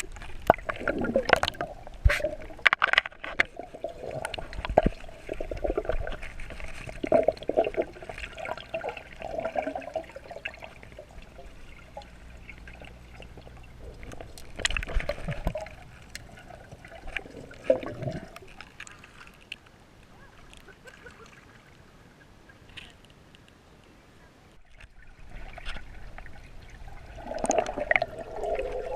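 Water sloshing and gurgling with irregular splashes and knocks, busy at first, dying down to a quieter stretch, then picking up again near the end.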